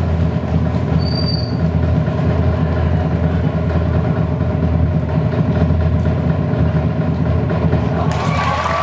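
Loud, continuous drumroll-like rumble building suspense before the crowning. A short whistle comes about a second in. Near the end the rumble gives way to cheering and applause.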